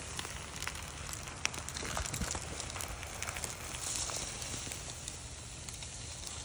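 Campfire crackling with many small irregular pops, and aluminium foil crinkling as it is handled around the cooked mackerel, loudest about four seconds in.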